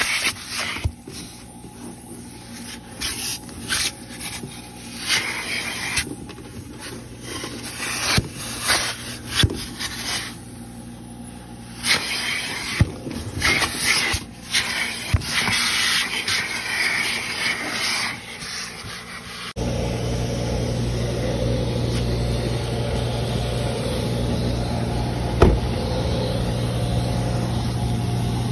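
Vacuum hose with a crevice nozzle sucking and rubbing across car floor carpet: irregular scraping, rushing bursts over a steady low motor hum. About two-thirds of the way in this gives way to a steadier, louder low hum, with one sharp click near the end.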